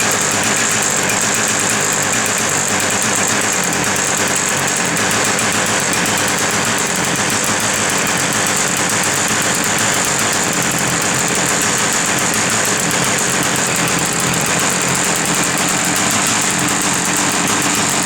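Husqvarna 359 two-stroke chainsaw engine running steadily, its fast even firing unchanged in pitch or level throughout.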